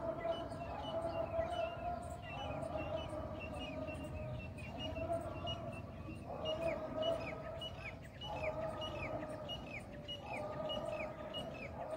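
Birds chirping, short falling notes repeated about two or three a second, over a louder steady droning tone that breaks off briefly every two seconds or so.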